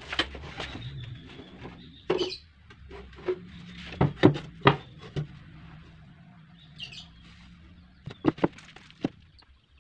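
Plywood speaker-box panels knocking and clattering against each other and a wooden workbench as they are picked up and held together. A few sharp knocks, loudest about four to five seconds in, with more near the end.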